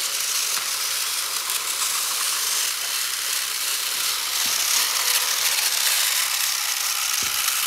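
Several battery-powered toy trains running at once on plastic track: a steady whirring, clattering hiss of small motors and wheels, with a couple of faint knocks.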